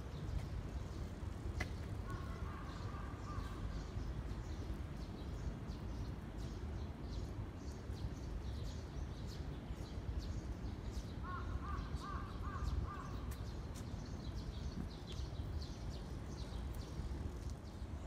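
Birds calling in the trees: small high chirps throughout, and two short series of lower-pitched calls, one about two seconds in and another about eleven seconds in, over a steady low rumble.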